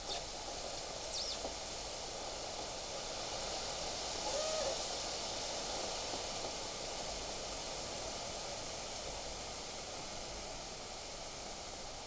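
Steady wind noise at the pond, a constant hiss, with a brief high chirp about a second in and a short louder rush of noise around four and a half seconds.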